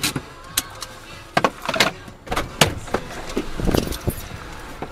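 Irregular clicks and knocks inside a stopped car's cabin, with bursts of rattling clatter about a second and a half in and again near the end.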